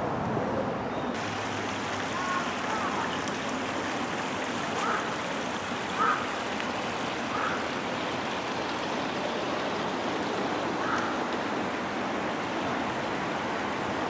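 Steady rush of a shallow stream running over stones, with a few brief faint chirps over it.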